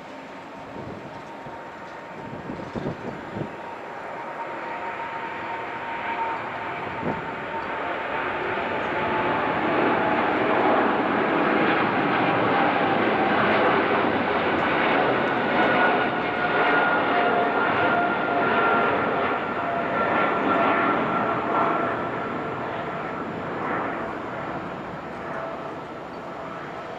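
Boeing 777-300ER jet taking off, the engines' roar building over the first ten seconds or so, holding, then easing off near the end. Whining engine tones glide down in pitch as the jet passes.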